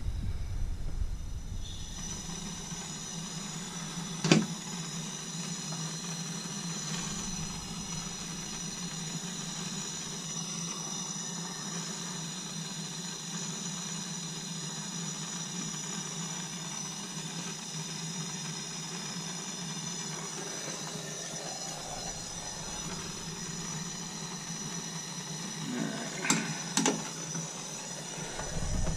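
Hand-held soldering torch burning with a steady hiss while it heats a copper pipe fitting being soldered. A sharp click sounds about four seconds in, and a couple of knocks come near the end.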